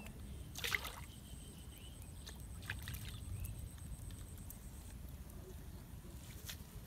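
Short splashes of water as a small fish is hooked and jerked out of a pond on a bamboo pole and line. The sharpest splash comes about a second in and smaller ones around three seconds in, over a steady low rumble of wind on the microphone.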